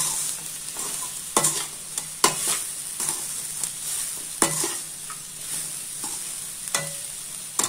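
Gobi 65 (fried cauliflower) with onions and green chillies sizzling in oil in a metal kadai while being stir-fried with a perforated metal spoon. The sizzle is a steady hiss, broken by several sharp scrapes and clinks of the spoon against the pan.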